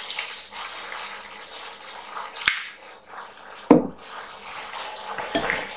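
Water poured from a glass into a bowl of chopped spinach, onion and gram flour, then a plastic spoon stirring and scraping the stiff pakora mix, knocking against the bowl three times, loudest about halfway.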